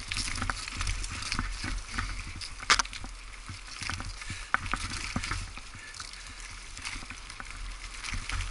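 Bicycle riding over a rough woodland dirt trail: irregular clattering knocks and clicks from the bike and its tyres bumping over the ground, with one sharper knock a little under three seconds in, over a steady low rumble.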